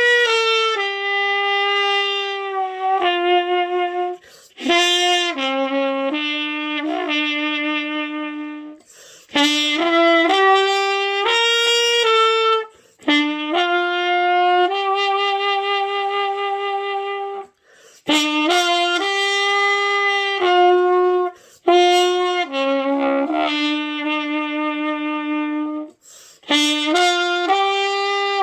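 Trumpet playing a slow melody of held notes, some with vibrato, in phrases broken by short pauses for breath every few seconds.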